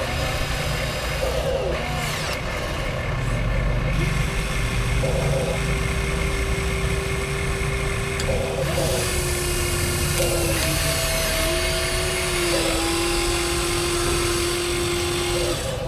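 Electric drive motors and gearboxes of Huina radio-controlled construction machines whining as they work, the pitch holding steady for a few seconds at a time, then dipping and shifting as the controls change, over a constant low rumble.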